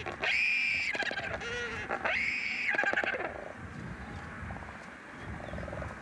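Wandering albatrosses calling during a courtship dance: two loud, drawn-out calls about a second apart, each rising and then falling in pitch. Rapid clicking follows the second call, then the calling dies down.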